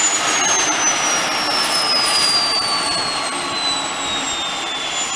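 Turbine whine of a Eurocopter EC135 air-ambulance helicopter running down on the ground after shutdown, its pitch falling steadily, over a steady rushing hiss.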